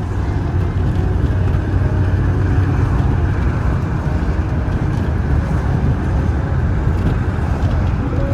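A vehicle driving on the road, with steady engine and road noise that is loud and heaviest in the low end.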